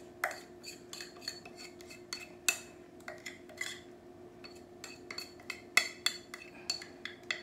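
Metal fork scraping and clinking against a glass mixing bowl as thick cornbread batter is scraped out into a foil pan: irregular clinks and short scrapes, the sharpest about two and a half seconds in and again near six seconds.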